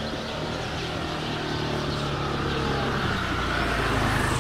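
A motor vehicle's engine running, growing steadily louder as it approaches.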